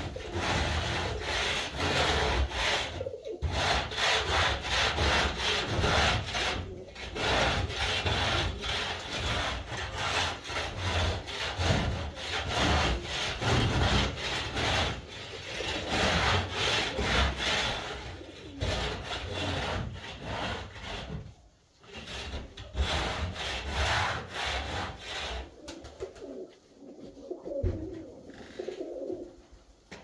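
Köröser tumbler pigeons cooing under a long run of loud, repeated scraping and rubbing noise, which dies away about 26 seconds in, leaving the cooing.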